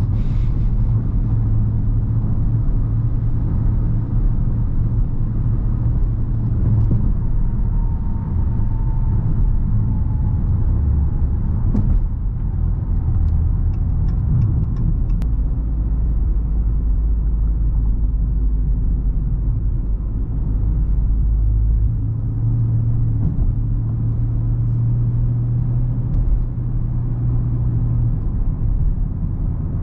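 Dodge Charger R/T's 5.7-litre HEMI V8 running on the move, a steady low engine drone with road rumble. The engine note drops lower around the middle and rises again later. There is a single click about twelve seconds in.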